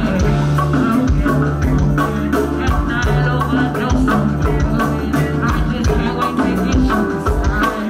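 Live band music with a steady drum beat and a bass line.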